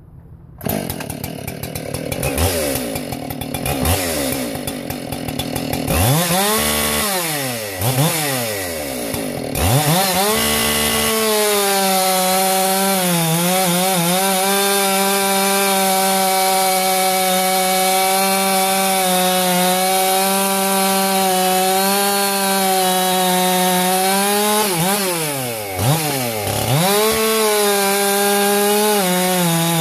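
Ported Husqvarna 576XP two-stroke chainsaw with a dual-port muffler and 28-inch bar. It runs unevenly at first, is revved up and down several times, then from about eleven seconds in holds a steady full-throttle note while cutting wood. The revs briefly drop and climb again about twenty-six seconds in.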